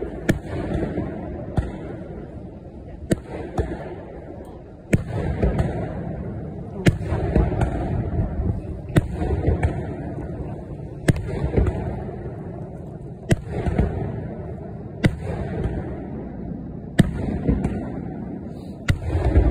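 Fireworks shells bursting, a sharp bang about every two seconds, each followed by a long low rumble.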